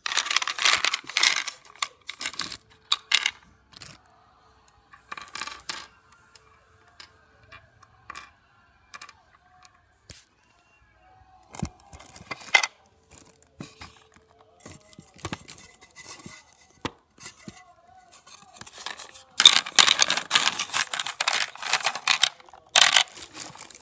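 Small toy gem stones clinking and rattling against each other and the wooden box as a hand stirs them. Several dense bursts of clattering come at the start, about five seconds in and near the end, the longest, with scattered single clicks between.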